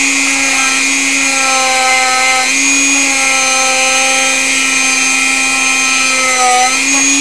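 Handheld rotary tool with a small wire brush running at high speed, a steady whine with a brief waver about two and a half seconds in, as it scrubs grunge out of the grooves of an aluminum motorcycle brake caliper.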